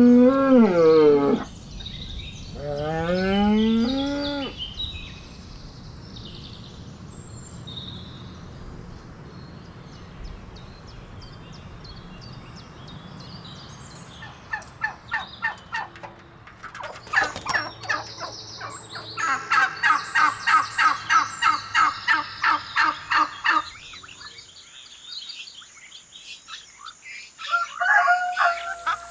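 Farmyard animals: cattle mooing twice in the first few seconds, then, after a quiet stretch, domestic fowl calling in long runs of rapid repeated notes from about the middle on, with more calls near the end.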